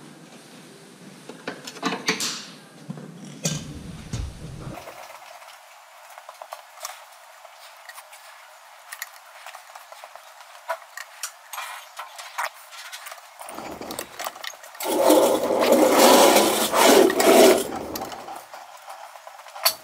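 Pliers and hand tools working on small-engine parts: scattered clicks, taps and light metal clatter. About fifteen seconds in there is a louder rough scraping that lasts a couple of seconds.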